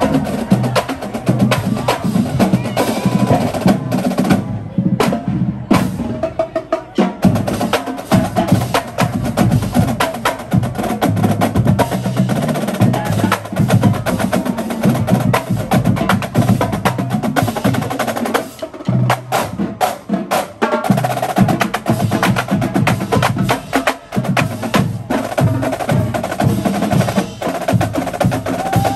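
Marching band drumline playing a cadence on snare, tenor and bass drums, with a steady stream of sharp stick and rim clicks.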